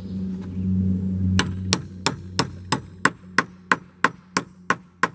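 Rapid, even hammer taps on a wooden end joist, about three a second, starting about a second and a half in, knocking the board down flush with the joist. A low hum fades out as the tapping begins.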